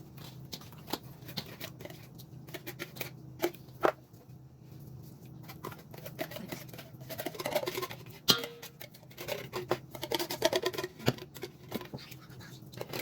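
Irregular small clicks and scrapes of a utensil against a container as pumpkin puree is scooped out, with a couple of sharper knocks.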